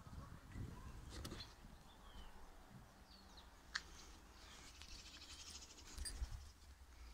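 Faint outdoor ambience: a few brief, high bird chirps over a low rumble, with one sharp click a little past the middle.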